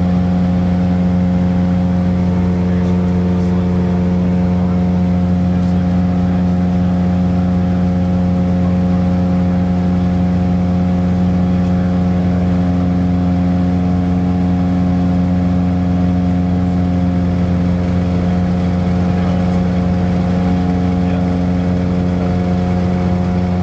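Piper Seminole's piston engine and propeller running in flight, a steady, unchanging drone heard from inside the cabin.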